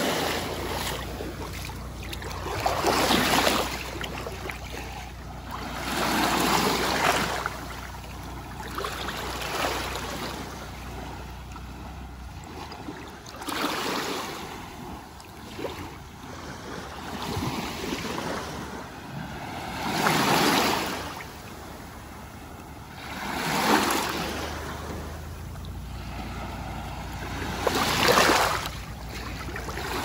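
Small waves lapping onto a sandy shore in calm, shallow sea water: each washes in and breaks with a soft rushing splash, one about every three to four seconds, between which the water hisses gently.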